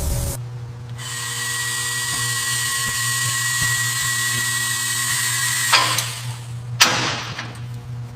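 An electric power tool running steadily with a high whine for about five seconds, then two sharp hits about a second apart.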